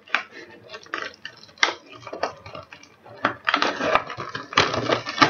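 Clear plastic packaging crinkling and rustling in irregular bursts as it is handled, busiest and loudest from about three and a half seconds in.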